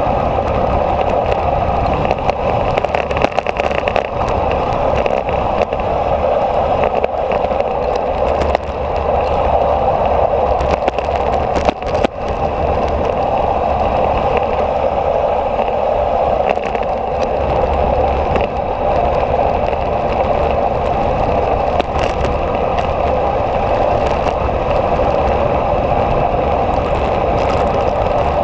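Steady rush of wind and road noise on a vehicle-mounted action camera descending a mountain road, with a low rumble underneath and a few short knocks, one about 12 seconds in.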